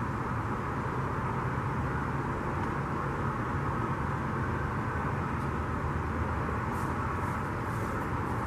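Steady low outdoor background rumble, with footsteps on a concrete sidewalk coming closer: faint regular steps about every half second, starting near the end and growing louder.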